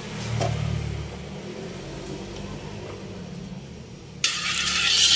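A low steady hum, then, about four seconds in, a sudden loud sizzle as cooking oil is ladled into the hot, empty stainless-steel wok, hissing on steadily.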